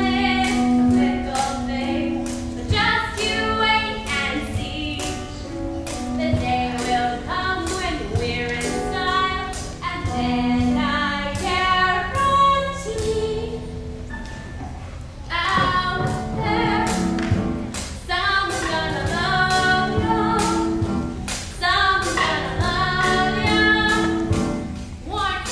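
Voices singing a musical-theatre song together over an instrumental accompaniment with a steady beat.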